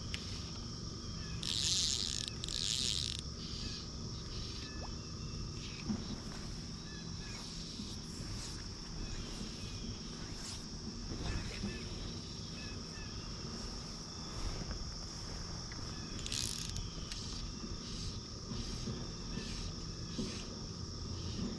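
A steady chorus of insects chirping at one high pitch. Twice, a short rasping noise rises over it: once about two seconds in and once about two-thirds of the way through.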